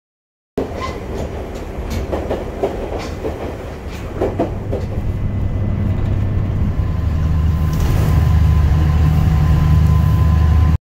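Shinkansen bullet train running: a low rumble that grows louder through the second half, with a scatter of sharp clicks in the first half.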